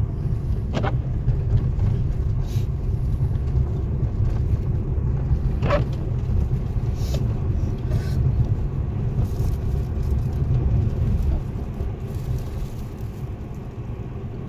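Low, fluctuating rumble of wind buffeting the microphone, with a couple of faint clicks.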